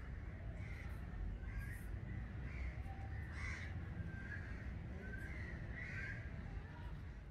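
Birds calling over and over, short calls roughly once a second, over a steady low rumble.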